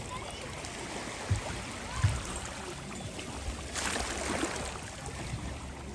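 Small sea waves washing onto a beach, with one fuller wash of surf about two-thirds of the way through. Two brief low thumps come in the first half.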